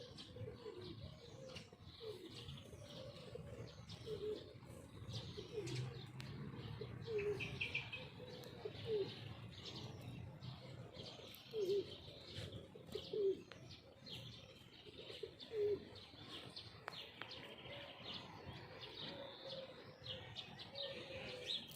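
A small bird calling over and over: many short chirps, some low and some high, following one another throughout.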